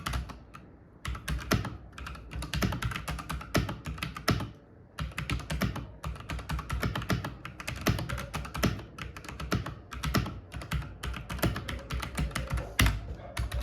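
Fast typing on a mechanical keyboard with Outemu red linear switches: a dense clatter of keystrokes with two short pauses, one about half a second in and one around four to five seconds in.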